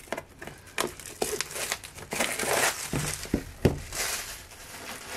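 Clear plastic shrink wrap crinkling and tearing as it is peeled off a cardboard box. Several sharp knocks come about three to four seconds in.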